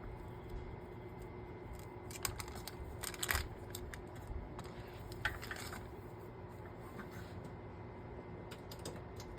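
Small solder fume-extractor fan running with a steady low hum, with scattered light clicks and knocks as it is handled, the loudest about three seconds in.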